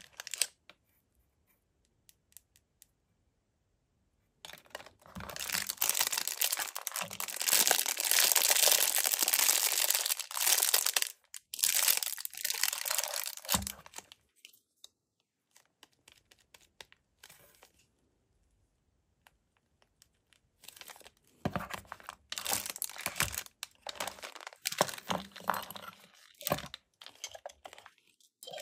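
Plastic bags crinkling and rustling as the wrapped accessories in a pistol case are handled and pulled out. There are several seconds of loud continuous rustling, a quiet pause, then shorter spells of crinkling near the end.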